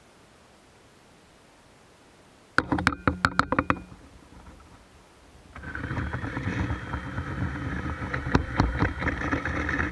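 Cordless drill driving a cone-cutting attachment: a quick series of short trigger bursts about two and a half seconds in, then a steady whir with irregular clicks for about four seconds while a knife blade is held against the spinning part. It stops abruptly near the end.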